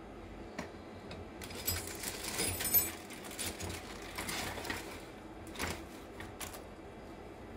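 Small parts being handled on a workbench: scattered light clicks and clinks, with a burst of rattling about two seconds in and one louder knock shortly after.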